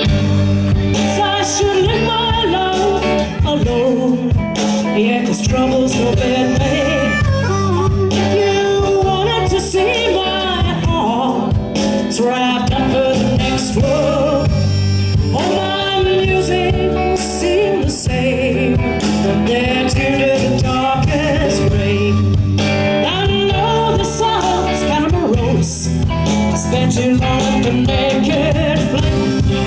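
Live blues band playing: a blues harmonica, cupped against a vocal microphone, takes a solo over electric guitar, electric bass and drums.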